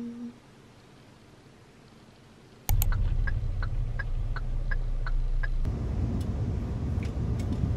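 Low steady rumble of a moving car heard from inside the cabin, starting suddenly about a third of the way in, with light regular ticks about three a second for a couple of seconds. Near the end it turns into a broader rushing road noise.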